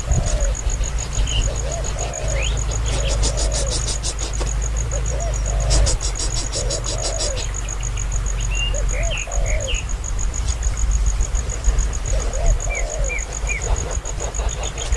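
An insect's steady, evenly pulsed high trill with scattered short bird chirps and repeated low arching calls, over a low rumble. Two brief rattling bursts come about three and six seconds in.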